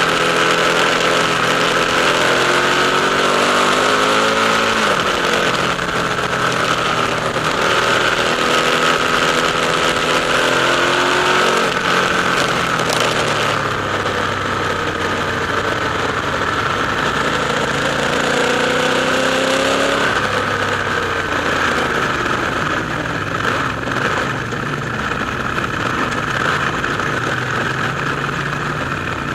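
Ducati motorcycle engines running and revving, their pitch climbing and falling several times, with one long climb that drops off sharply about two-thirds of the way through. The engine sound echoes inside a road tunnel.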